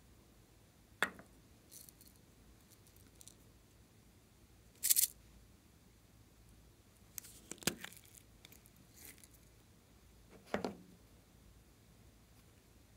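Small plastic slime containers being handled on a table: a few scattered light knocks and clicks as they are picked up and set down, with a brief scraping rustle about five seconds in.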